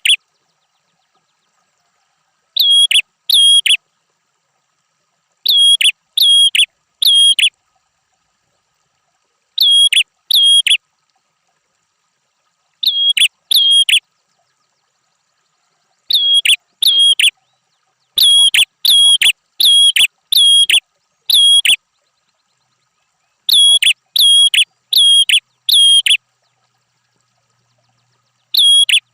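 Prenjak kepala merah songbird calling: short, sharp, high calls in quick runs of two to eight, with silent pauses of one to two seconds between runs, as played on a masteran track for tutoring caged birds.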